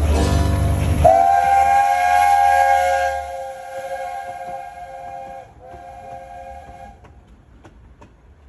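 Narrow-gauge steam locomotive's whistle blowing a chord as the train passes: one long blast of about four seconds, then a short second blast. Near the end come faint regular clicks of the coaches' wheels over the rail joints.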